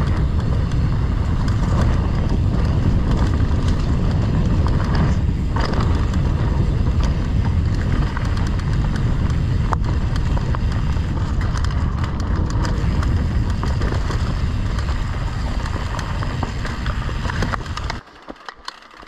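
Wind rumbling on the microphone, with the tyres and frame of a Fezzari Cascade Peak mountain bike rattling and clattering as it is ridden fast down a dirt trail. The noise cuts off abruptly near the end, leaving a much quieter background.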